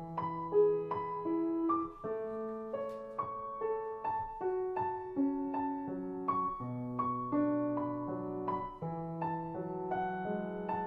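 Background piano music: a slow melody of held notes over lower sustained notes.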